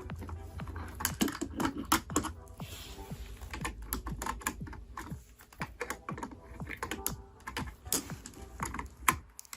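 Irregular small plastic clicks and knocks from a robot vacuum's main roller brush being handled and fitted back into its housing on the underside of the robot.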